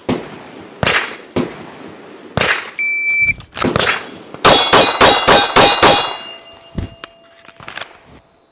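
A shot-timer beep, then six rapid 9mm shots from a PSA Dagger pistol (a Glock 19 clone), about a quarter-second apart, fired as a Bill drill. A few quieter single gunshots come before the beep.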